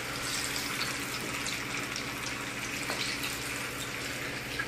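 Marinated chicken pieces deep-frying in hot oil: a steady sizzle with scattered small crackles.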